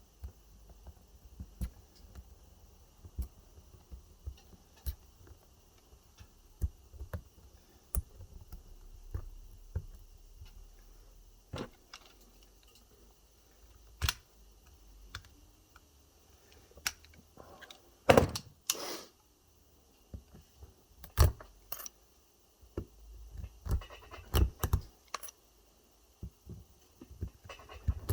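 Pliers biting and prising nickel connector strip off the cells of an e-bike lithium battery pack: scattered sharp metallic clicks and snaps, with small metal clinks. The snaps come more thickly and louder in two bunches, about two-thirds of the way through and again near the end.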